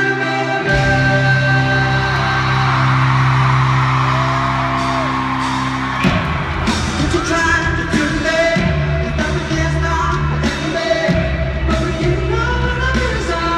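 Live pop-rock band and singer playing in an arena, with the echo of the hall and some crowd yelling. Held chords under the voice give way about six seconds in to the full band with drums.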